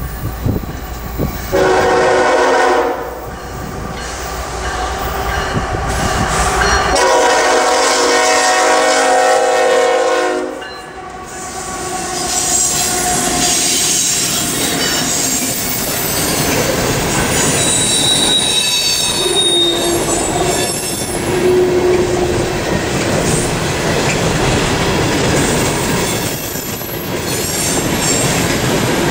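Diesel freight locomotive's air horn sounding two blasts as the train approaches, the second longer. Then coal hopper cars roll past with a steady rumble, clickety-clack and thin, high wheel squeal on the curve.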